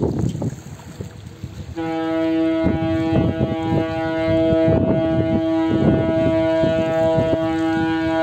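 The ship's horn of the ferry Nisos Rodos gives one long, steady blast. It starts about two seconds in and is still sounding at the end, with wind buffeting the microphone throughout.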